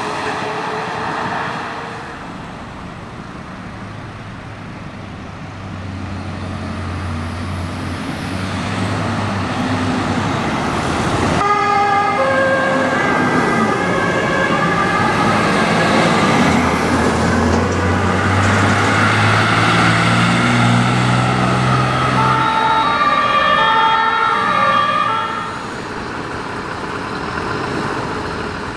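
German fire trucks on an emergency run: a heavy truck's engine running, then the two-tone siren of a German fire engine, its alternating high and low notes loud over the engine. It grows louder from about six seconds in and drops back shortly before the end.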